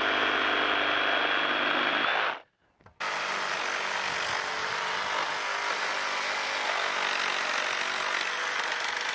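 Flex 24V FX227-1C reciprocating saw running steadily in orbital mode, cutting through a log; it stops about two seconds in, then starts again a moment later cutting through a stack of wooden boards, with a rougher, rasping cut sound.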